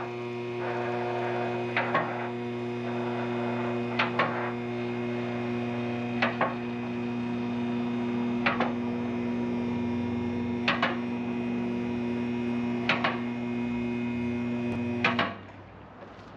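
Electric motor running with a steady hum, with a pair of sharp clicks about every two seconds. It shuts off suddenly about a second before the end.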